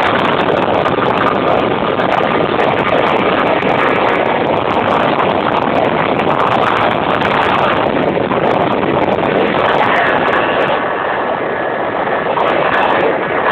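Racing motorboat under way at speed: a steady, loud mix of engine and rushing noise that dips slightly near the end.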